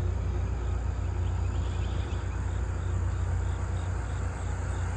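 Outdoor roadside ambience: a steady low rumble with an insect chirping in even pulses, about four a second.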